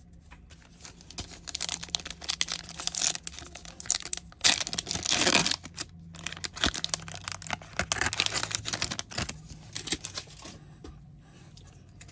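Foil MetaZoo Seance booster pack crinkling in the hands and being torn open, with the loudest ripping about halfway through. The crinkling dies down shortly before the end.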